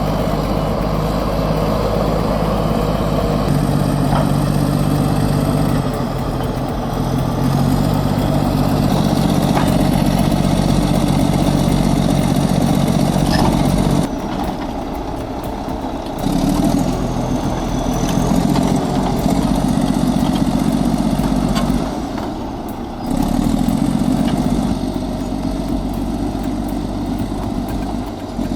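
Large diesel engine of a crawler bulldozer working hard, its note steady but swelling and easing as the load changes, with a couple of abrupt drops in level.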